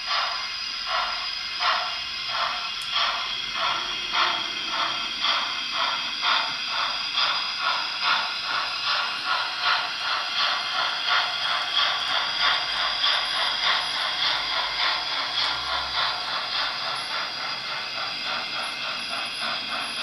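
Zimo digital sound decoder in a Hornby OO gauge model of a Stanier Princess Coronation 4-6-2 steam locomotive, playing steam exhaust beats through its small onboard speaker as the model pulls away. The chuffs come in a steady rhythm that quickens from under two a second to about three, then fade slightly near the end.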